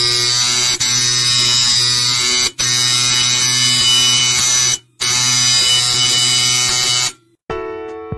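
Dot peen marking machine's stylus buzzing steadily as it hammers a logo into a metal bar. The buzz breaks off briefly twice and stops for a moment about 5 seconds in, then cuts off about 7 seconds in, and piano-like music begins near the end.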